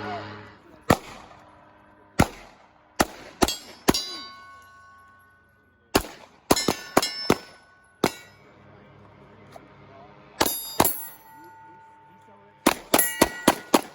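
A string of handgun shots in irregular groups, about eighteen in all, with steel targets ringing with a clang after the hits.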